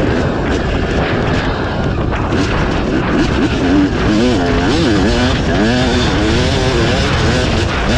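Yamaha YZ250 two-stroke engine revving under way, its pitch climbing and dropping back several times as the throttle is worked, with wind rushing over the microphone.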